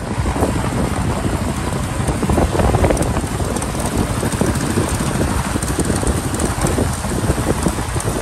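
Wind buffeting the microphone on a moving motorcycle, with engine and road noise underneath: a loud, dense, steady rush.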